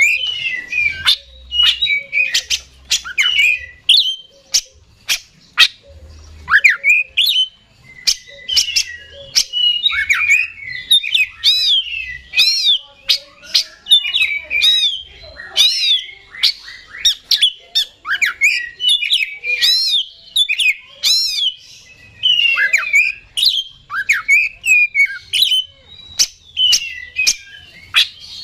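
Male oriental magpie-robin singing nonstop in rapid, energetic full song: a fast, varied string of sharp clicking notes and whistles. Several arching up-and-down whistles are repeated in the middle.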